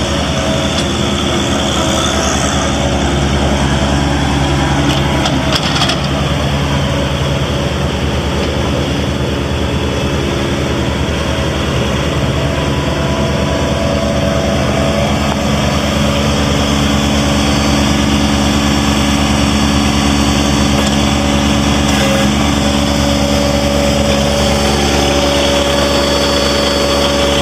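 John Deere 1023E compact tractor's three-cylinder diesel engine running steadily as the tractor drives.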